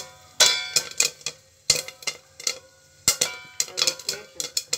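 Popcorn kernels popping inside a covered stainless steel pot: irregular sharp pops, several a second, each kernel striking the metal lid with a short ringing clink.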